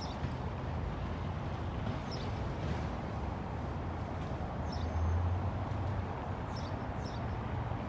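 City street ambience: a steady low rumble of traffic, swelling about five seconds in as a vehicle passes closer, with occasional light clicks.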